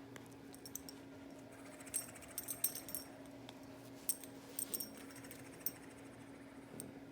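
Snoring: rattly snores a couple of seconds apart, over a steady low hum.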